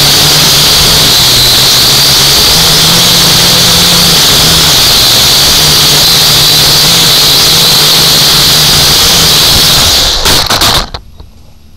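UDI U818A-1 quadcopter's motors and propellers buzzing loudly right at its onboard camera's microphone, the pitch stepping up and down with the throttle. Near the end, with the drone just above the track, there are a few knocks and the motor noise cuts off.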